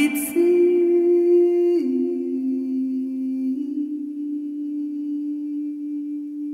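Music: a single voice humming slow, long-held notes that step to a new pitch a few times and gradually fade.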